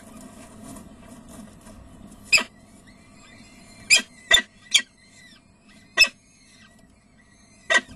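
Peregrine falcon chicks giving faint, high, short begging cheeps over and over while being fed, broken by about six loud, very short sharp sounds.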